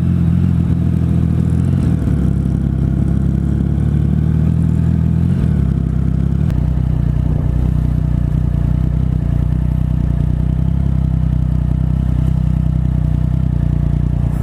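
Triumph Speed Triple 1050's inline three-cylinder engine running steadily while the bike rolls at low speed, heard from on the motorcycle, with a slight change in its low note about halfway through.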